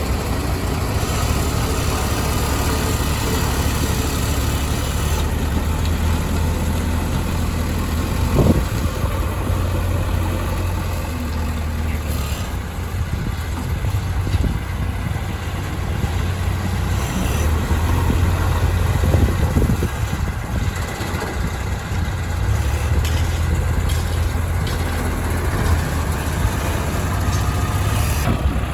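Diesel engines of a backhoe loader and tractors running steadily, the level rising and falling a little, with a short knock about eight seconds in.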